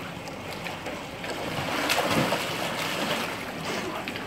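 Swimming-pool water splashing and churning as a child swims, swelling from about a second in to its loudest near the middle.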